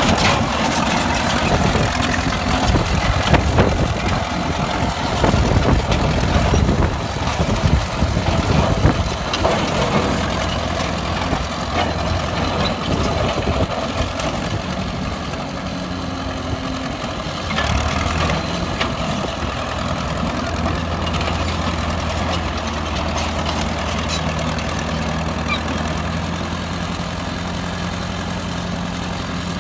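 Caterpillar crawler loader's engine running as the machine moves on its tracks, with irregular clanks and knocks over roughly the first ten seconds, then a steadier low drone.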